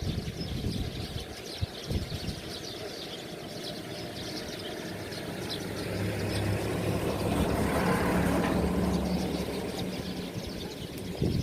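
A flock of small birds chirping without pause, while a motor vehicle's engine hum grows, is loudest past the middle and fades away near the end as it drives past.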